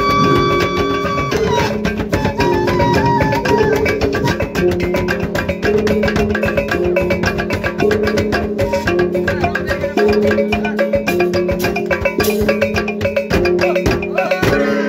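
Gordang sambilan, the Mandailing ensemble of nine large tuned drums, beaten with sticks in a fast, continuous interlocking rhythm, with small hand cymbals. A held melody line steps from note to note above the drumming.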